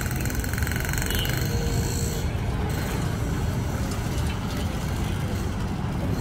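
Steady city street noise, mostly a low rumble of passing traffic.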